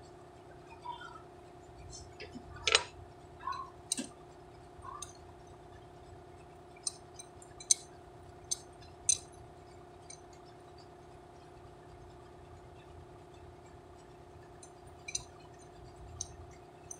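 Scattered sharp metallic clicks and clinks of hand tools and parts during assembly of a truck air compressor, a few strokes spaced seconds apart, over a steady low hum.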